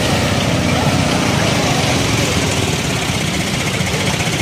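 Small vehicle engine running steadily close by, with a fast low throb.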